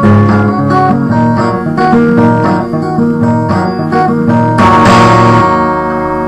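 Acoustic guitar strummed in a rhythmic chord pattern. About four and a half seconds in, a last chord is struck and left to ring out.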